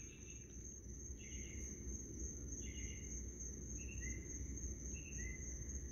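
Faint night insect chorus: a steady high-pitched drone with short chirps repeating about once a second, over a low background rumble.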